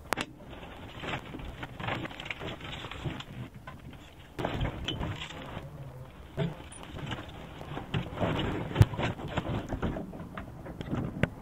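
Irregular clicks, knocks and rattles of handling, with one sharper knock, the loudest, in the last third.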